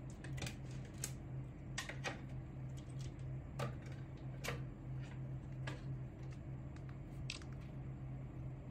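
Scattered light clicks and taps from handling a phone and small repair tools, irregular and a few a second at most, over a steady low hum.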